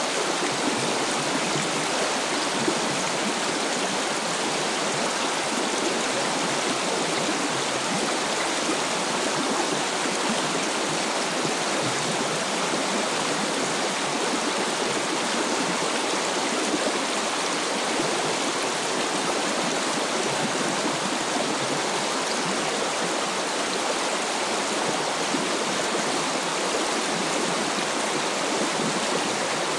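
Shallow river water flowing steadily over a gravel riffle, a constant even rush with no breaks.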